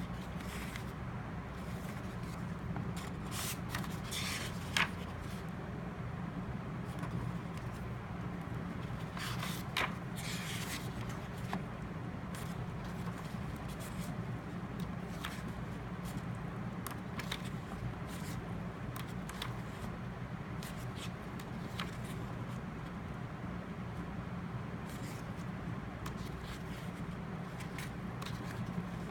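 Paper being handled, with scattered rustles and small clicks, over a steady low hum.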